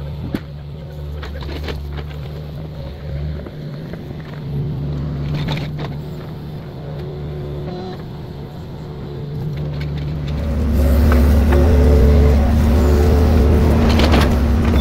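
Mini excavator's diesel engine running steadily, with scattered knocks and scrapes as its bucket works in clay soil and broken concrete. A little past two-thirds of the way through, the engine sound becomes markedly louder.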